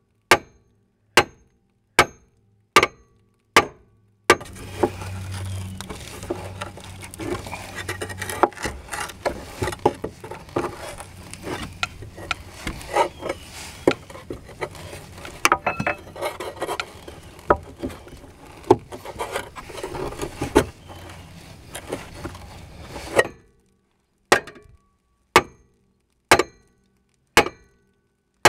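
Sharp metal knocks about once a second, hammer blows on a seized suspension bolt. About four seconds in they give way to a long stretch of scraping, clinking and knocking as a pry bar works at the burnt rubber bushing around the bolt. About five seconds before the end the evenly spaced knocks start again.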